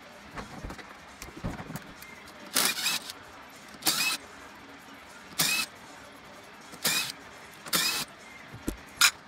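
A power tool running in five short bursts, each with a brief rising whine, as it spins out the five spring-loaded 10 mm bolts holding the clutch pressure plate on a 2016 Kawasaki KX450F; a sharp click near the end.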